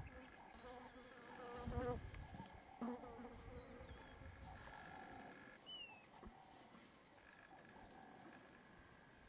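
Insects buzzing steadily, with a handful of short, high, falling bird chirps and a brief low rumble about two seconds in.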